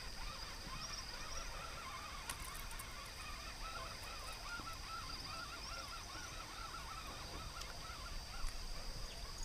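A flock of birds calling, many short arched calls repeating and overlapping in a continuous chorus, over a steady high-pitched hum.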